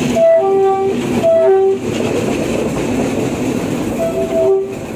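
Locomotive horn sounding short two-note blasts, a higher note dropping to a lower one, twice in quick succession near the start and once more near the end. Underneath runs the steady rumble and wheel clatter of a train passing close by.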